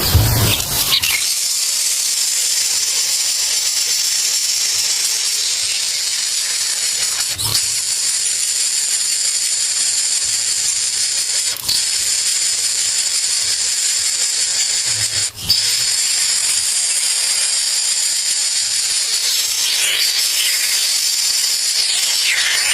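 A steady high-pitched hiss, broken by a few brief clicks.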